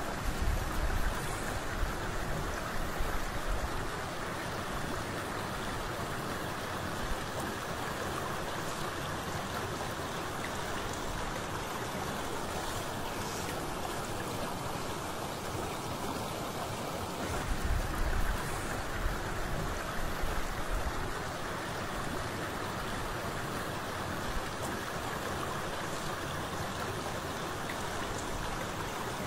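Steady rush of flowing water, with low rumbles in the first few seconds and again a little past the middle.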